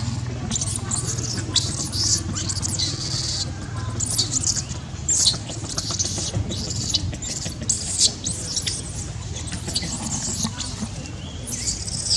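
Baby macaque crying in a rapid run of short, shrill squeals and screeches, many a second at times, with brief pauses between bouts: the distress calls of an infant being handled roughly by its mother.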